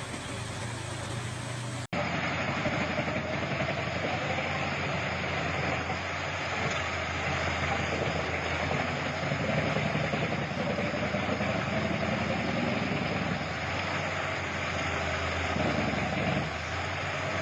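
Engine of a large forestry wood chipper running steadily, its pitch wavering slowly with load. The sound is broken by an abrupt cut about two seconds in.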